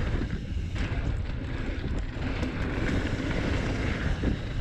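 Wind buffeting the microphone over the rumble of mountain bike tyres rolling fast on a hard-packed dirt trail, with a few short clicks.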